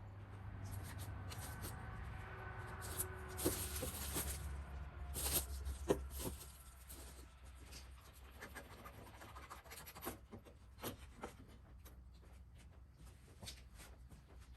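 Hands working parts on a motorcycle handlebar: rubbing and scraping with scattered small clicks and knocks, busiest in the first half with one sharp knock about six seconds in, then sparser ticks over a faint low hum.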